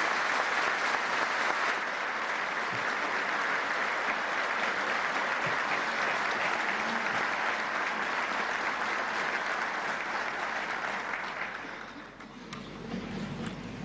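A large standing audience applauding steadily, then dying away about twelve seconds in.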